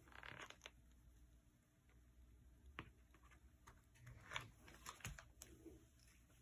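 Near silence with a handful of faint, sharp clicks and taps, mostly in the second half, from a small hot glue gun being handled and pressed against fabric.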